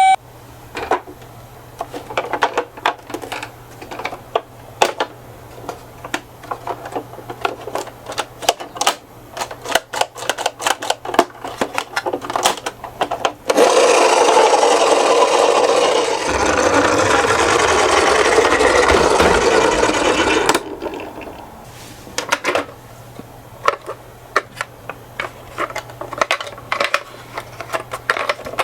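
Small plastic and metal clicks and knocks as die-cast toy minicars are handled. About halfway through, a toy car's wheels rasp steadily as it rolls down a slope for about seven seconds, then the clicking resumes.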